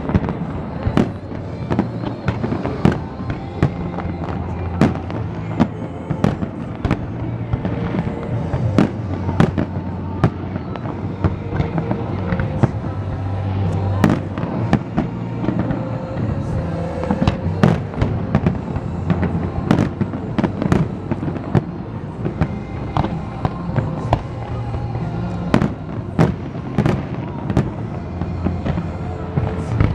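Fireworks bursting in quick, irregular succession, many sharp bangs throughout, over a music soundtrack with a steady bass.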